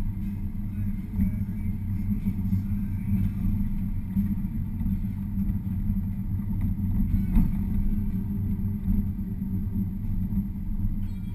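Low, steady rumble of a car heard inside the cabin as it drives slowly over an unpaved, rutted lane, with a single jolt about seven seconds in.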